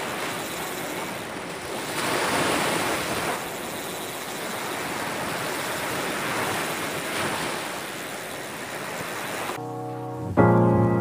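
Ocean surf breaking and washing up the beach in a steady rush, swelling louder about two seconds in. About a second before the end it cuts abruptly to piano music.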